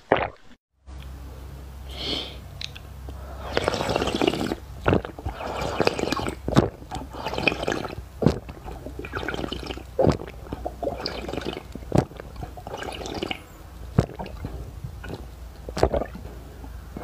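Close-miked wet mouth sounds of eating ice cream: repeated squishy, liquid bursts with a sharp smack every couple of seconds. There is a brief dropout to silence about half a second in.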